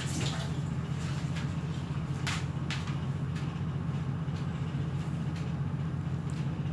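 Steady low hum of a running household appliance, with a couple of light clicks about two and a half seconds in.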